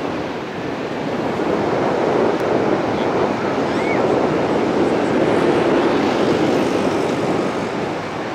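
Steady rush of ocean surf breaking on a beach, with a faint short chirp about four seconds in.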